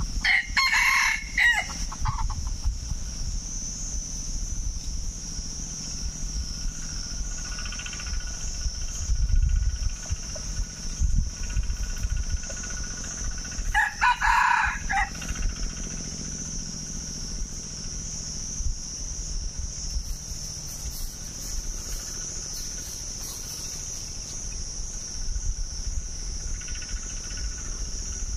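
Red junglefowl rooster crowing twice: a short crow about half a second in and another about halfway through.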